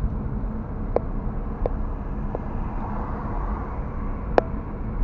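Steady low rumble of road and engine noise inside a moving car's cabin, with a few short sharp clicks, the loudest about four and a half seconds in.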